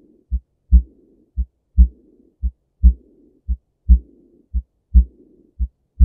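Heart sounds of aortic regurgitation: a steady heartbeat at just under one beat a second, each cycle a short soft first sound and a louder second sound. Each second sound is followed by a soft blowing murmur that fades away, the early diastolic decrescendo murmur of a leaking aortic valve.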